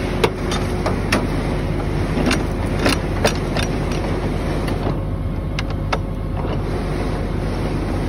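John Deere cotton picker's diesel engine idling steadily, with scattered sharp clicks and metallic knocks from hands working in the picker's sheet-metal row unit.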